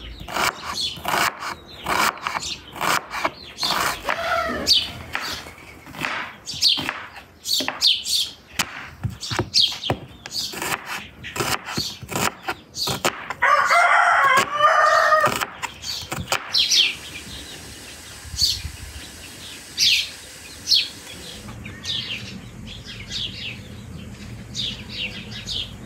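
Knife chopping an onion on a wooden cutting board, a quick run of crisp strokes. About fourteen seconds in, a rooster crows once, loudly, for two or three seconds. After that come only scattered high bird chirps.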